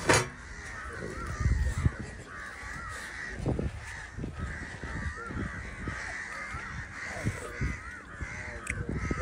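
Birds calling over and over in the background, a busy stream of short wavering calls, with a few low thumps and bumps, the loudest about a second and a half in.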